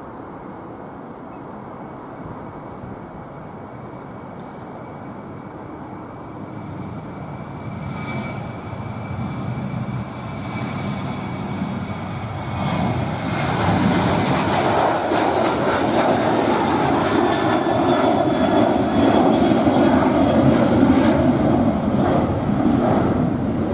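Boeing 737 jet engines at takeoff power. A steady rumble with a faint whine builds as the airliner accelerates down the runway, lifts off and climbs out, and is loudest over the last ten seconds.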